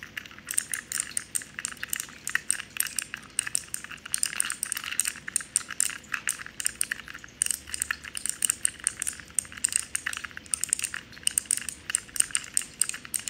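Plastic keycaps on a handheld keyboard fidget ball being pressed over and over with the fingers: a rapid, uneven run of sharp little clicks.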